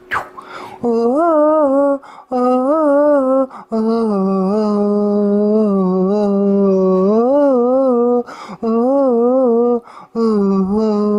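A man humming a wordless melody in five phrases with short breaks, the middle one a long held note that wavers up and down.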